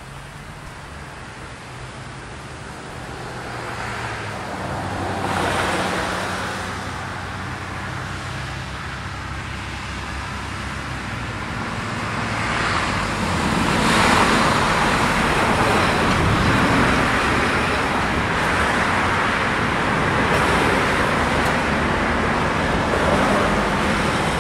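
Road traffic noise: vehicles passing by, swelling about five seconds in and again around fourteen seconds, then staying loud.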